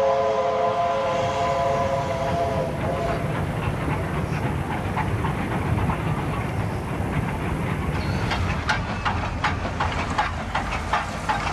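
Steam locomotive whistle held on a steady note, cutting off about three seconds in, then the locomotive running with a steady rumble. In the last few seconds a rapid run of sharp beats comes in.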